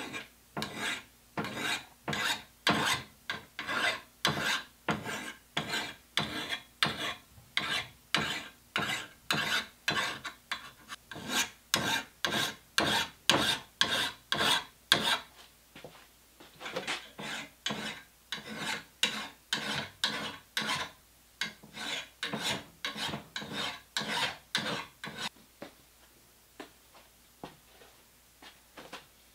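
Hand file scraping across the steel bit of an axe head, about two rasping strokes a second, filing the edge. The strokes pause briefly about halfway, then stop near the end, with a few faint ones after.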